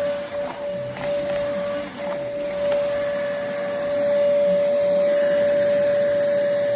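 Cordless stick vacuum cleaner running, its motor giving a steady whine over a rushing hiss of air, a little louder from about four seconds in.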